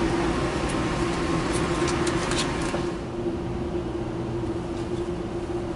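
Steady mechanical hum with a hiss, from a car idling at a car-wash entrance and the wash machinery running in the bay. The hiss drops away about three seconds in, leaving the hum.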